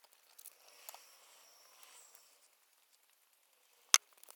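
Small handling noises at a study desk: soft rustling and scattered light clicks, with one sharp click near the end.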